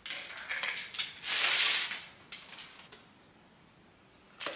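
Knife carving into a whole roast chicken: a few light knife and utensil clicks, then a longer noisy scraping cut about a second in, and another click after it.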